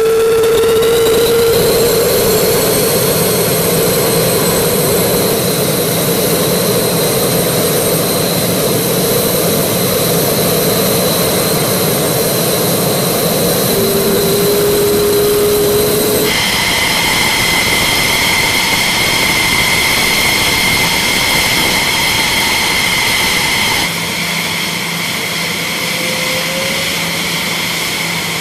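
F-16C Block 52 Fighting Falcon's turbofan engine running at idle on the ramp: a loud steady jet roar with high whistling whine tones. The tones change abruptly twice, about sixteen and twenty-four seconds in.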